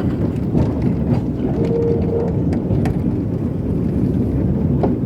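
Railway carriage running along the track: a steady low rumble with scattered clicks and knocks, and a short steady tone about two seconds in.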